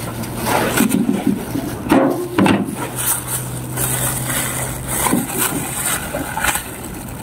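Handling noise of a halved champadak being pried open by hand in clear plastic gloves: rustling plastic and the fruit's flesh and rind being worked apart, with a few sharper knocks. A steady low engine hum runs underneath.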